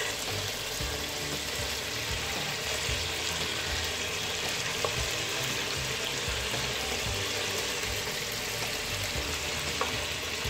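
Chicken pieces frying in oil and masala on high heat: a steady sizzle, with a couple of faint clicks.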